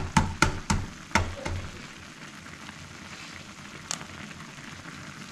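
An egg tapped several times against the rim of a metal skillet, about four quick taps a second for the first second and a half, then one sharp crack near four seconds as the shell is pulled open. Under it the noodle soup sizzles and bubbles steadily in the pan on the heat.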